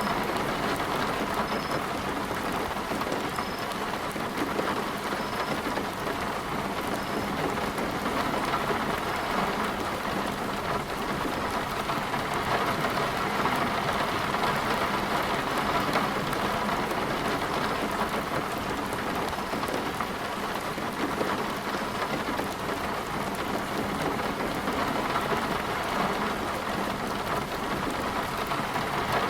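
Heavy rain falling steadily, a thick, even hiss of rain on surfaces.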